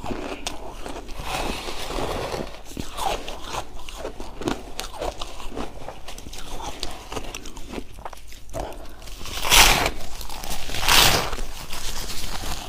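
Close-miked biting and chewing of shaved ice: a steady run of small crisp crunches, with two louder crunches near the end.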